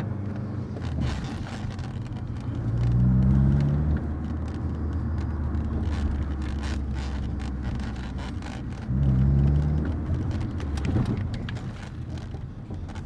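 Steady engine and road drone inside a moving 2006 Fiat Punto 1.4 with its four-cylinder petrol engine. Twice, about three seconds in and again about nine seconds in, the engine pulls harder for a second or so and its note rises.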